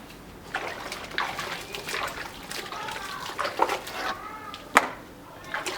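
Irregular kitchen handling noises, with several clicks and scrapes and one sharp click about five seconds in, under a faint voice in the background.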